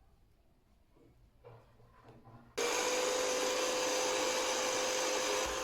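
A few faint handling sounds, then about two and a half seconds in a small electric fan-driven air appliance switches on abruptly and runs steadily: a rush of air with a held whine. It is being used to clean tea residue from the keyboard's switch parts.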